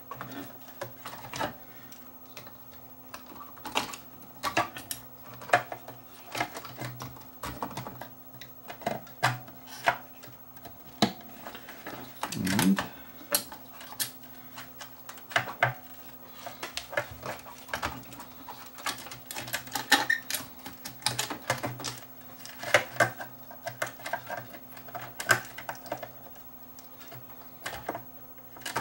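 Irregular light clicks, taps and clatter of parts being handled as a CRT monitor's circuit board, plug and controls are refitted during reassembly, with a faint steady low hum underneath.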